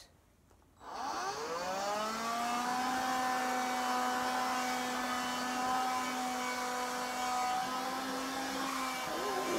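Handheld vacuum cleaner switched on about a second in, its motor whine rising as it spins up and then running steadily with a hiss of air.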